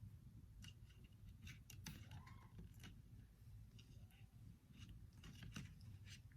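Near silence with scattered faint clicks and taps from handling the slime kit's containers while pouring and mixing ingredients.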